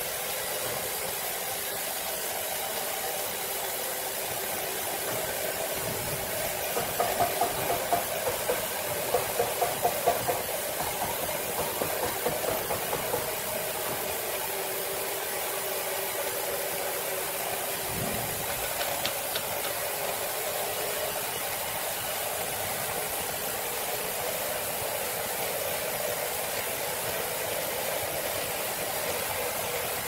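Horizontal band sawmill running, its blade sawing along a large log as the saw head travels on its rail: a steady mechanical running noise, with a run of louder irregular pulses from about seven to thirteen seconds in.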